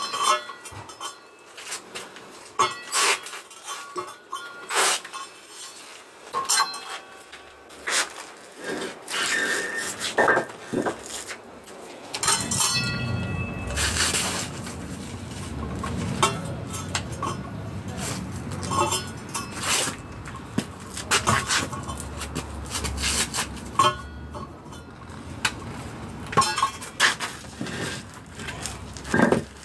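Angle grinder worked against concrete blockwork in short, irregular bursts of grinding, mixed with clinks and scrapes, with a steadier low rumble through the middle stretch.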